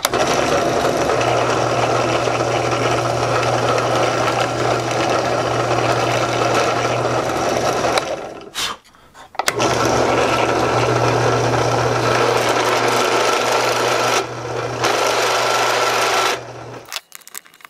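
Benchtop drill press motor running steadily while a small twist bit drills a pilot hole in a wooden block. It stops for about a second about halfway through, then runs again with a countersink bit cutting the screw-head recess, and stops near the end.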